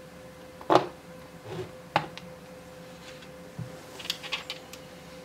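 3D-printed plastic lamp base plate being handled and set into place: a loud knock about a second in, a sharp click about two seconds in, a few small knocks, then a quick cluster of light clicks near the end.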